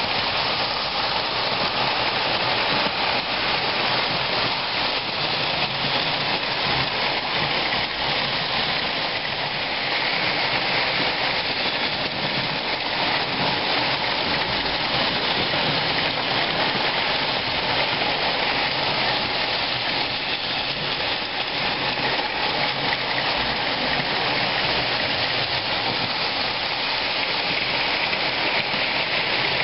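Several Lionel O-gauge toy trains running at once on three-rail track: a steady, even whir and clatter of motors and wheels.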